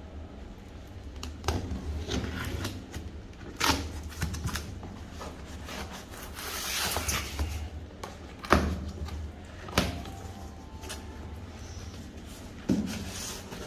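Parts and packaging of an engine kit being handled: several sharp knocks and clatters, with a longer rustle about halfway through.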